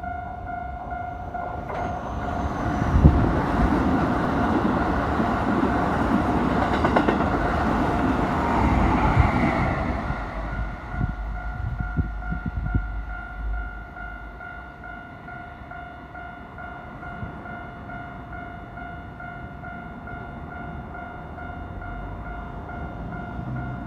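Japanese level-crossing warning bell sounding steadily while a Keikyu Line train runs through the crossing. The train's rumble and wheel noise are loudest for the first ten seconds or so, peaking about three seconds in, then give way to a few wheel clacks and fade, with the crossing bell still sounding.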